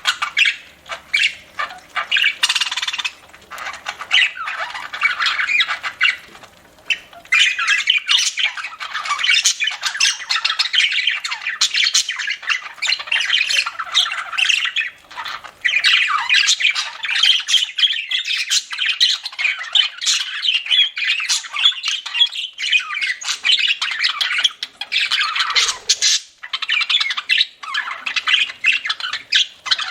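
Several budgerigars chattering and squawking almost without pause, with many short sharp clicks mixed in and a brief lull about seven seconds in.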